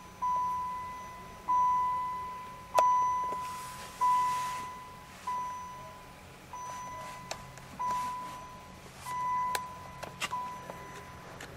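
2000 Dodge Viper GTS dashboard warning chime dinging over and over, about once every 1.3 seconds, nine times, each ding fading away, while the driver's door stands open. A few light clicks of handling are heard among the dings.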